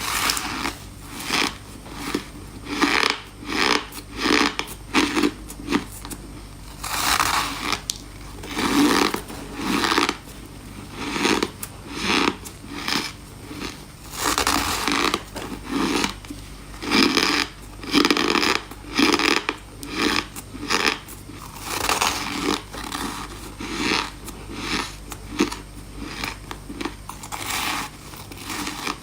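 A person crunching and chewing ice with the mouth close to the microphone, a crisp crunch about once a second.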